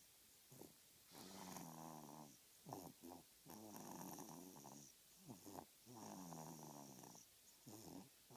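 Quiet snoring: three long, pitched snores a little over a second each, with short sounds between them.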